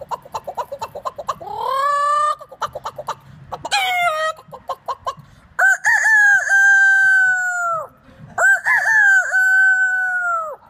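A man imitating a chicken with his voice: rapid clucking broken by a couple of short rising squawks, then two long rooster crows, each with a few quick pitch turns before a long held note.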